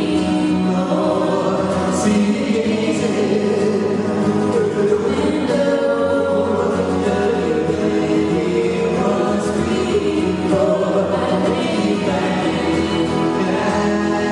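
Live band music with several voices singing long held notes in harmony.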